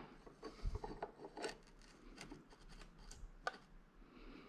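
Faint, irregular light metal clicks and scrapes as a direct-mount chainring is handled and slid onto the greased splined spindle of an e-bike mid-drive motor.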